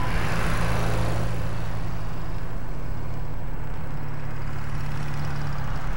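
A motor vehicle driving along a paved road, its engine holding a steady hum under a rush of road and wind noise. The rush is strongest in the first second or so, then settles.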